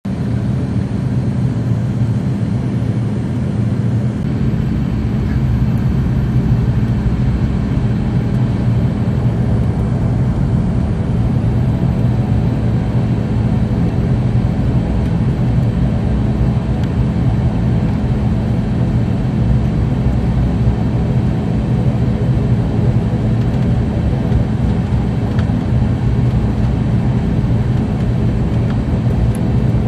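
ATR 72 twin-turboprop engine and propeller drone heard from inside the cabin while the plane taxis: a steady low hum made of several even tones over a rushing noise, nudging slightly louder about five seconds in.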